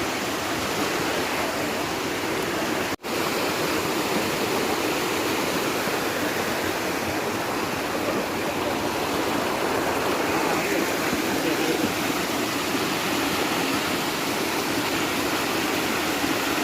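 Steady rush of flowing water from a rocky forest stream and waterfall, broken by a split-second dropout about three seconds in.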